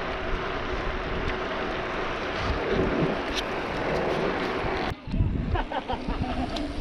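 Wind buffeting the microphone of a camera on a moving bicycle, a steady rushing noise. About five seconds in it cuts off suddenly to a quieter stretch of wind noise.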